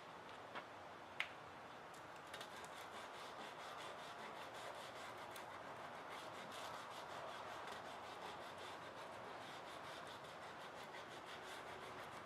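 Sandpaper rubbing in the narrow groove of a wooden dowel with quick, faint back-and-forth strokes, easing the groove that is still a little tight for the spring wire. Two light clicks come just before the sanding starts.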